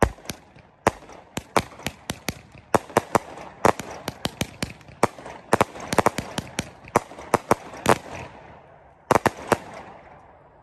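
A 25-shot, 200-gram consumer fireworks cake (Raccoon Fireworks Strobing Willow) firing in rapid succession: dozens of sharp bangs, several a second, with a hiss between them. The last shots come about nine seconds in, then the sound dies away.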